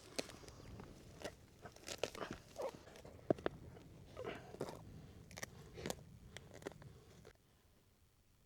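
Irregular crunching and rustling with sharp clicks scattered through, falling to a faint hush about seven seconds in.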